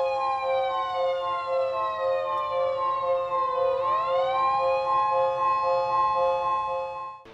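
Siren wailing: one steady, slightly pulsing tone overlaid by a second tone that falls in pitch and then rises again about four seconds in. It cuts off abruptly near the end.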